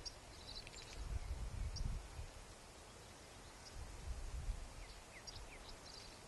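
Wind buffeting the microphone in low, rumbling gusts, with small birds giving short, high chirps here and there.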